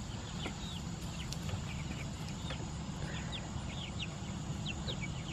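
Chickens peeping softly: many short, high chirps, a few a second and irregular, over a steady low rumble.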